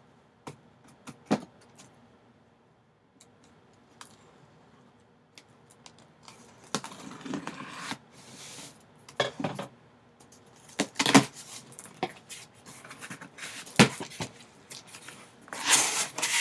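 Scissors slitting the packing tape on a sealed cardboard shipping box, with scattered clicks at first, then rasping cuts and a few sharp knocks in the second half. Near the end the flaps are pulled open and crumpled kraft packing paper rustles.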